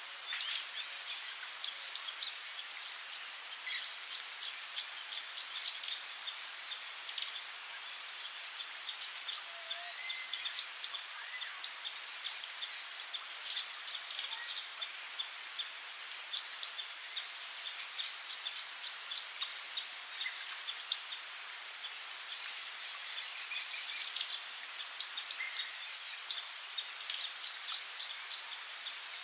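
Rainforest ambience: a steady, high-pitched chorus of insects, with scattered faint bird chirps. Short, louder high calls stand out four times, once about two seconds in, around eleven and seventeen seconds, and as a quick pair near the end.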